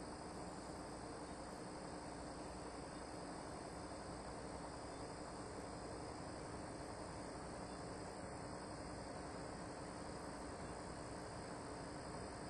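Faint steady background noise: an even hiss with a few steady high tones, and no distinct events.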